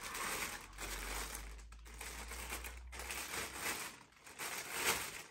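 Plastic packaging crinkling and rustling in uneven bursts as a boxed cooler radiator is unpacked, loudest near the end.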